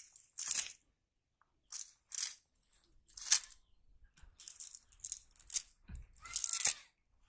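Cast net and dry straw rustling and crackling against grass in short, irregular bursts as a netted fish and net shift about.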